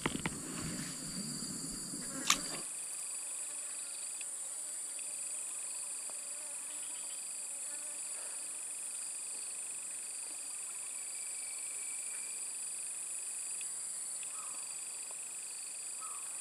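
Steady chorus of insects: several unbroken high-pitched trills sounding together, one of them stopping and starting a few times. In the first couple of seconds there is low rustling handling noise and one sharp click.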